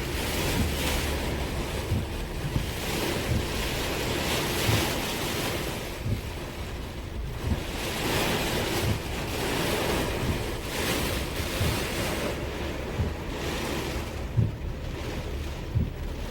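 Rushing of the storm-swollen Kano River in flood, swelling and easing every few seconds, with wind buffeting the microphone in low thumps.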